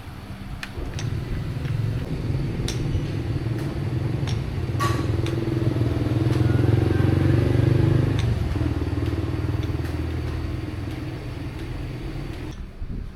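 A motor running with a low, steady hum that starts about a second in, grows loudest around the middle, eases off and cuts off abruptly near the end, with a few light clicks over it.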